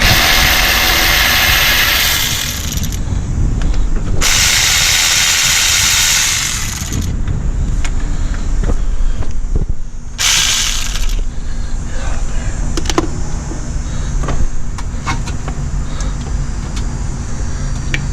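A power tool runs in three bursts, about three, three and one second long, with a hissing, full-range sound, while the A/C compressor's mounting bolts are worked loose. A steady low hum sits behind it, and there are light clicks of hand tools afterwards.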